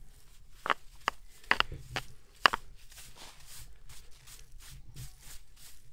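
Soft hand brush swept in quick, irregular strokes over freshly pointed lime mortar in a stone wall, brushing the loose crumbs off the joints as the final finishing pass: a run of short scratchy swishes, with a few sharper clicks among them in the first half.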